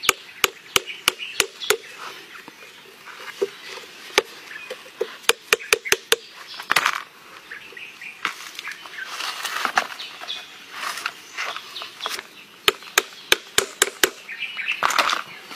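A blade chopping into green coconut husks: quick runs of sharp strikes, two or three a second, broken by short pauses.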